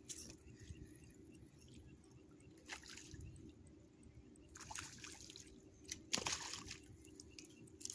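Faint water sounds at a pond's edge: a few brief splashes and drips on the water's surface, the strongest a little after six seconds in.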